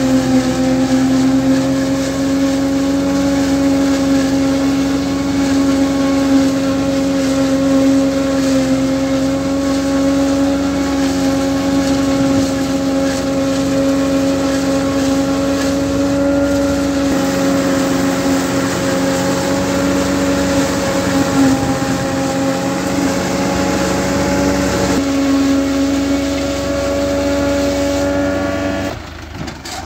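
Ursus C-360 tractor's diesel engine working steadily under load while it drives a Taarup 101 single-row forage harvester chopping maize into silage: a loud, even drone with a strong steady pitch. Near the end the sound drops suddenly and changes.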